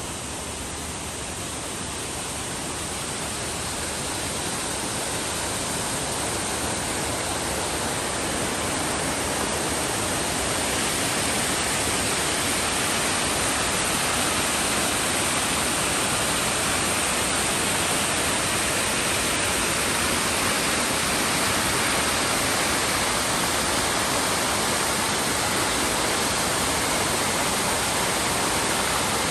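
Small waterfall rushing steadily, a continuous even wash of falling water that grows louder over the first ten seconds or so and then holds steady.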